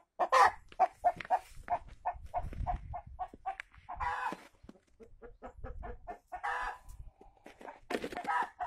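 Brahma chickens clucking: a steady run of short clucks, about four a second, broken by a few longer, louder calls.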